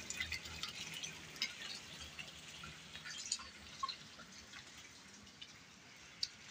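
Water dripping in scattered, irregular drops, faint, from the wet surroundings of the rainy season.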